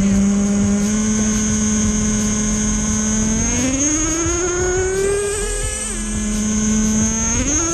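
Small two-stroke nitro engine of a Traxxas Jato 3.3 RC truck running with a high buzzing note. It holds steady, revs up about three seconds in, drops back to idle near six seconds and revs up again near the end.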